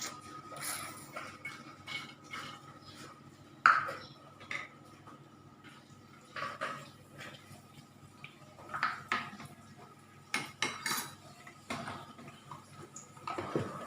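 Metal utensils clinking and knocking against a cooking pot, in scattered strokes with pauses between, the loudest about four seconds in.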